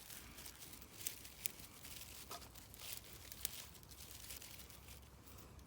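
Faint rustling and crinkling with several short, light clicks scattered through it.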